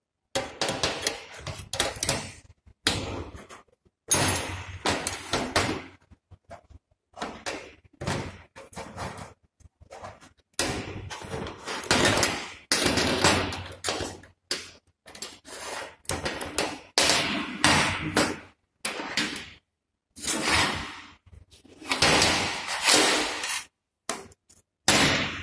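A thin steel plate scraping and knocking on a steel workbench as spring earth clamps are fixed onto it: a string of separate clanks, knocks and scrapes with short pauses between.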